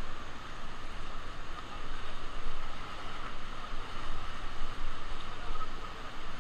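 Ganges river water rushing and splashing around a raft being paddled forward, an uneven rush that swells and dips.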